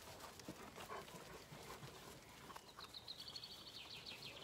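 Zwartbles lambs grazing, with faint soft clicks of grass being torn and chewed. A high, rapid trill comes in a little over halfway through.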